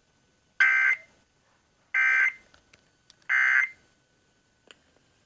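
Emergency Alert System end-of-message (EOM) signal: three short identical bursts of digital data tones, about a second and a half apart, marking the close of the alert broadcast.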